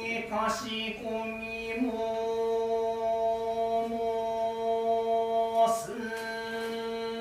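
Shinto priest chanting a norito prayer in a drawn-out monotone, each syllable held long on one steady pitch, with short breaks about a second in and near the end.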